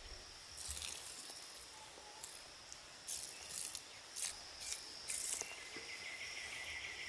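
Faint outdoor ambience: insects chirring steadily at a high pitch, joined about five seconds in by a second, lower pulsing insect buzz. A few short, soft hissing noises come and go in the first half.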